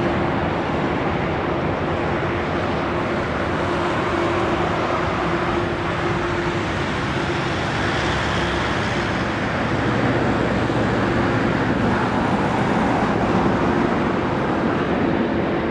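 Boeing 777-200LR airliner's GE90 jet engines running as it touches down and rolls out along the runway: a steady roar with a low steady hum through it, swelling slightly about ten seconds in.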